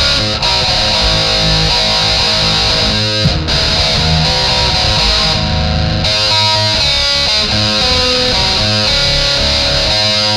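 Loud distorted electric guitar playing heavy metal-style music, notes held and strummed.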